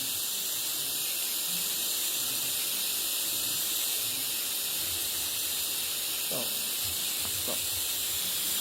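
TIG welding arc burning with a steady high hiss, cutting off abruptly at the very end as the arc is broken.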